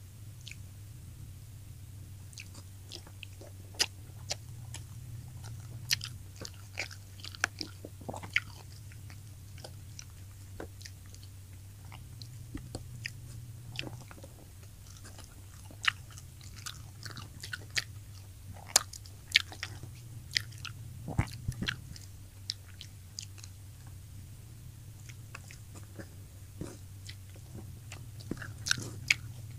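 Close-up mouth sounds of eating fried tilapia: chewing and biting, with sharp, irregular crunchy clicks from the crisp fried fish.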